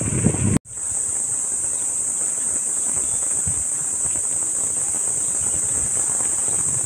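Steady high-pitched insect chorus from roadside vegetation, with wind rumble on the microphone of the descending bike for about the first half second, then a brief audio dropout.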